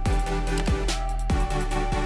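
Electronic background music with a steady beat, a deep drum hit about every two-thirds of a second.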